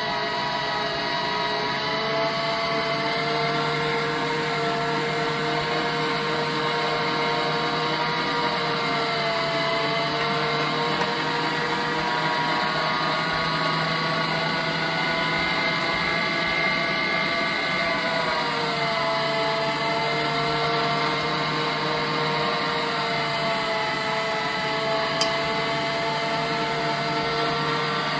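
Michelangelo electric meat grinder running steadily, its motor whining, as split peas are pushed through it and ground. The whine dips briefly in pitch twice, about a third and two-thirds of the way through.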